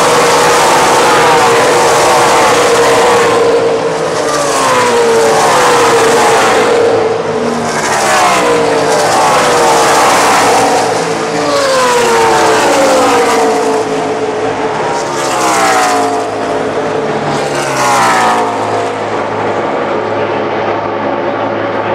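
NASCAR race trucks with V8 engines passing at racing speed one after another, each engine note falling in pitch as it goes by. The passes thin out near the end, leaving a quieter, steadier engine drone from further round the track.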